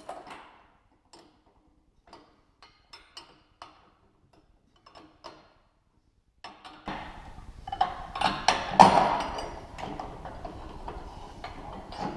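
Light metal clicks and taps from tools and parts, then from about seven seconds in a denser, louder clatter of metal handling as the chainsaw's crankshaft is worked out of the split crankcase.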